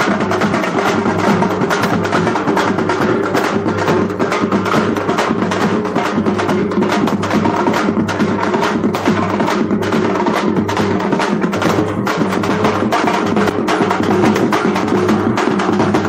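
Loud, fast drumming music with dense sharp strikes over steady low tones, running without a break.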